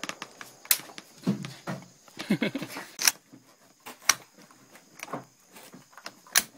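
Mosin-Nagant bolt-action rifle's bolt being worked by hand: a string of sharp metallic clicks and knocks at uneven intervals, with a few duller knocks in the first half. The bolt is stiff and has to be struck hard to cycle.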